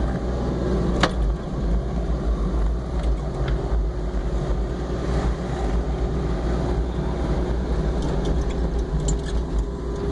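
Mini excavator's diesel engine running steadily while it works a loader bucket into a snow pile, heard from the operator's seat. A sharp click comes about a second in.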